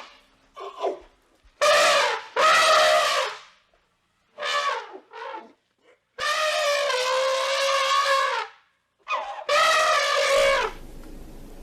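Elephant trumpeting: a series of separate calls, some short and some held, the longest about two seconds, several sliding down in pitch at the end. After the last call a faint steady background noise remains.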